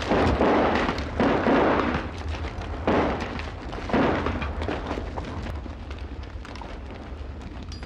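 Battle gunfire and explosions: four loud blasts, each dying away within about a second, in the first four seconds, then a quieter low rumble with scattered smaller shots.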